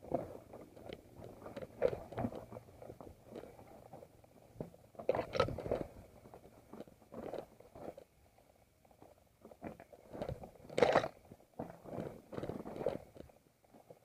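Mountain bike rolling down a rocky trail: tyres crunching over loose stones, with irregular knocks as the bike jolts over rocks, the loudest about five seconds in and again near eleven seconds.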